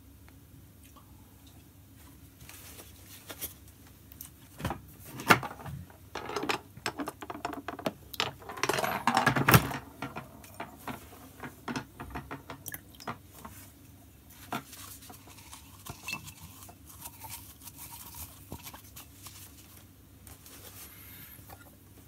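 Metal spoons and porcelain coffee cups clinking and knocking as they are handled and set down on a table. The clicks come thickest in the middle and thin out to scattered light taps.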